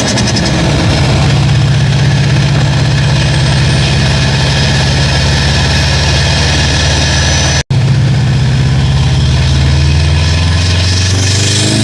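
VA Subaru WRX STI's turbocharged 2.5-litre flat-four idling steadily. It starts to rev up again near the end. The sound cuts out for an instant about two-thirds of the way through.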